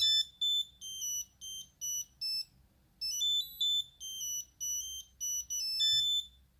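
Nokia 8210 monophonic ringtone playing a quick melody of short, high, pure beeping notes. The melody pauses for about half a second partway through, then stops shortly before the end.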